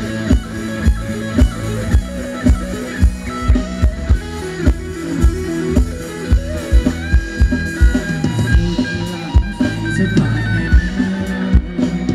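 Live band playing upbeat Thai ramwong dance music: a steady drum-kit beat of about two strokes a second under a guitar melody.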